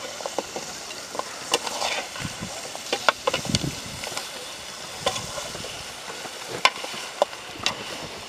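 Perforated metal skimmer stirring crab pieces in a large metal pot, scraping and clinking irregularly against the pot and the shells, over a steady frying sizzle.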